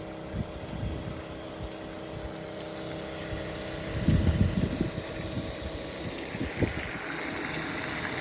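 Fuel transfer pump running steadily while the combine is fuelled. A cluster of low rumbles comes about four seconds in.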